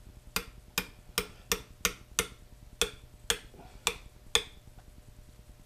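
Small brass-headed hammer tapping a 3/16-inch roll pin into the cross-hole of a steel tubular lathe chuck key: about ten sharp metal taps, two to three a second, that stop near the end.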